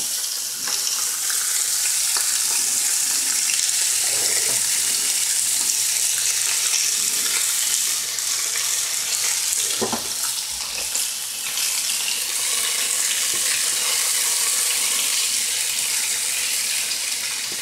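T-bone steak sizzling steadily on a hot griddle as it is seared for grill marks, with a couple of faint knocks of a utensil.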